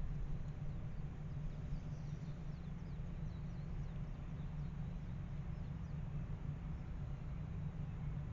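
Faint, short, high bird chirps repeating over a steady low rumble.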